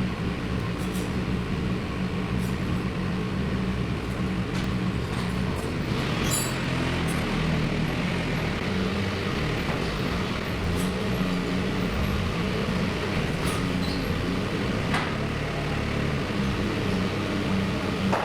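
A motor or engine running steadily at an even pitch, with scattered light metallic clicks and knocks over it.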